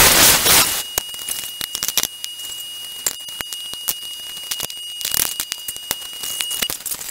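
Plasma cutter arc cutting through a steel bolt head: a loud hiss for about the first second, then crackling and ticking over a thin steady high tone, with a second short burst of hiss about five seconds in.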